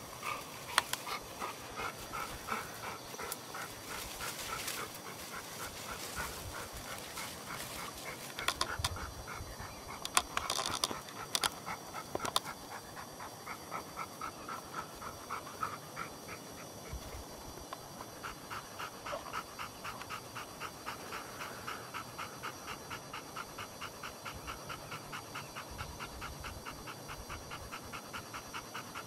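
A dog panting hard with its mouth open, in a quick, even rhythm of about three breaths a second that is plainest in the second half. A few sharp knocks sound about nine to twelve seconds in.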